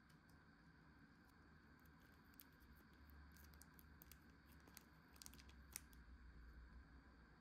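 Near silence: faint room tone with a scatter of soft light clicks, most of them in the middle stretch.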